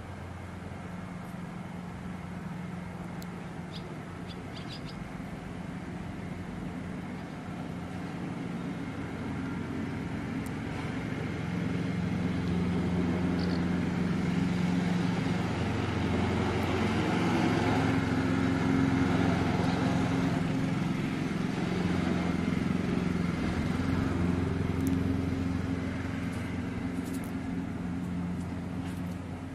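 A steady engine hum grows louder through the middle and then fades again, like a motor passing slowly. A few short bird chirps sound about four seconds in and again in the middle.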